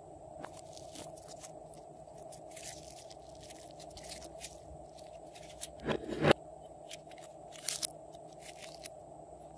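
Pink glossy slime being stretched and squeezed by hand, with sticky crackles and small pops, and a louder squelch about six seconds in. A faint steady hum sits underneath.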